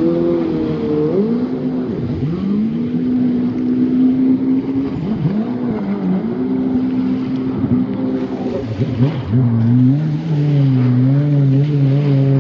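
Jet ski engine running under way, its pitch dropping and climbing back three times as the throttle is eased off and opened again, holding steady in between.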